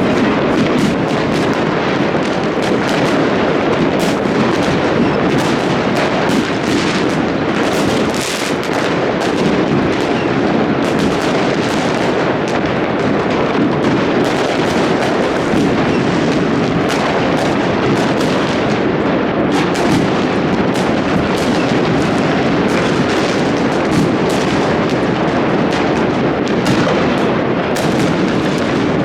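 Dense, continuous crackle and booming of many fireworks and firecrackers going off at once, with the individual bangs overlapping into a steady din.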